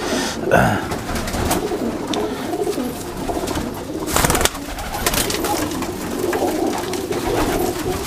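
A loft full of high-flying pigeons cooing, a dense overlapping murmur. About four seconds in, a brief loud burst of wing flapping as a pigeon takes off from a hand.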